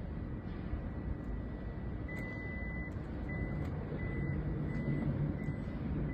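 2024 Toyota Sienna power sliding door closing under its motor, with a low steady hum. About two seconds in its warning beeper starts: one longer high beep, then short beeps about twice a second.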